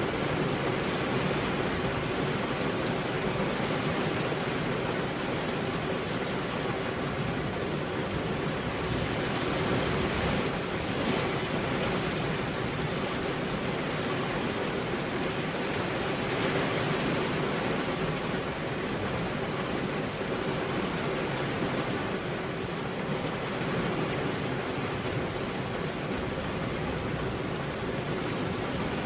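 Heavy rain falling on a road, a steady even hiss with no thunder.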